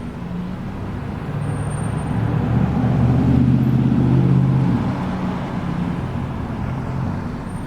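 Car engine and road noise heard from inside a moving car, a low hum that swells for a couple of seconds in the middle and then eases off.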